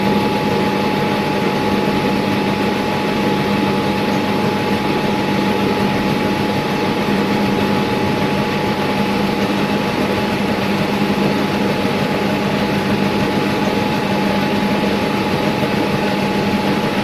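Milling machine running steadily, with a constant high whine and a low hum over a rushing mechanical noise.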